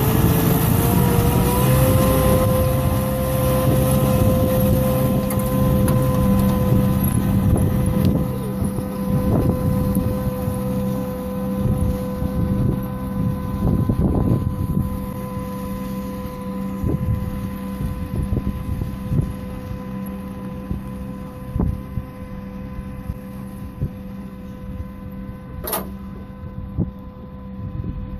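Diesel tractor engine running under load while pulling a multi-row seed planter, its pitch rising slightly in the first couple of seconds, with a steady whine over a low hum. It gradually gets quieter as the tractor moves away; one sharp click near the end.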